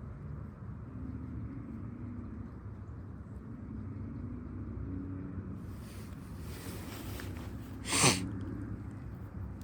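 A steady low rumble, with one short, loud sneeze-like burst from a person about eight seconds in.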